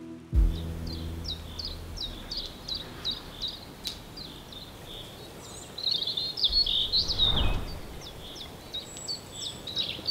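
Songbirds singing: a steady run of short, high, falling chirps, with several birds overlapping in the second half. A brief rush of noise passes under them about three-quarters through.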